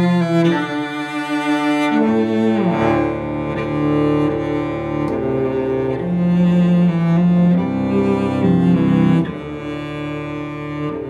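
Two cellos playing a bowed duet: one carries held melody notes while the other sustains a lower line beneath it, with a sliding descent about two and a half seconds in.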